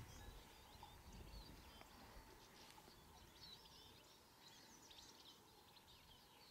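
Faint birdsong in near silence: small birds chirping and twittering in quick, high notes, busiest in the second half.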